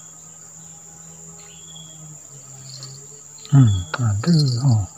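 Insects droning steadily at a high pitch, with a faint low hum beneath. Near the end a man's voice briefly speaks a few words, louder than the insects.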